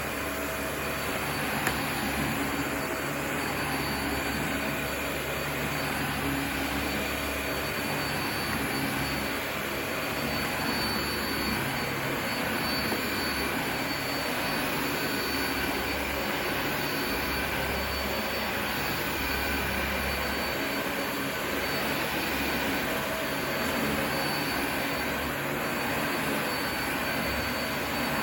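Vacuum cleaner running steadily, with a high motor whine over its rushing suction noise, as it picks up Shake n' Vac carpet powder.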